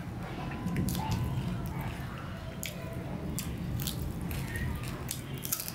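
Close-miked eating by hand: fingers squishing and mixing rice on a plate, and wet chewing with many short sharp mouth clicks and smacks. A steady low hum runs underneath.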